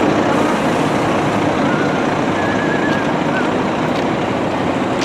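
Diesel engine of a Scania-chassis Marcopolo Paradiso 1800DD double-decker coach running, a loud steady noise with no change in pitch.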